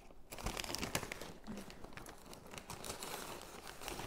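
Gift wrapping paper crinkling and rustling as it is pulled open by hand, with many small crackles.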